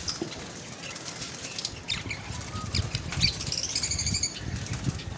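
Caged birds fluttering their wings, with scattered short high chirps and a quick trill of chirps about three and a half seconds in.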